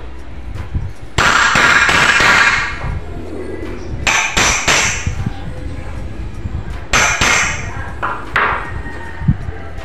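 Claw hammer striking a steel spike set against a wooden door-jamb joint: metallic blows, a quick run of them about a second in, then single strikes or short groups around four, seven, eight and nine seconds in.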